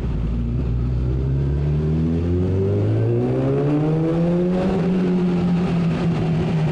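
Suzuki Bandit 650's inline-four engine through a Mivv aftermarket exhaust, under way: the pitch drops at a gear change right at the start, climbs steadily for about four seconds under acceleration, then holds steady.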